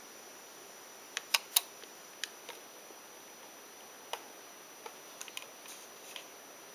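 About a dozen sharp clicks at uneven intervals, the loudest two close together about a second and a half in. Under them runs a steady faint hiss with a thin high whine.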